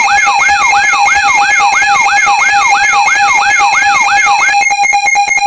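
Loud electronic alarm and siren tones: a rising-and-falling siren whoop repeats about three times a second over steady pulsing beeps. About four and a half seconds in, the whoops stop and the beeps go on as a rapid stutter.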